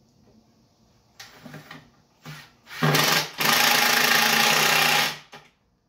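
Cordless drill driving wood screws into a plywood-and-pine cornhole frame: two short trigger pulls, then a longer drive that stops briefly and runs on steadily for under two seconds as the screw seats, then one last short burst. The drill does the work without the user pressing hard on it.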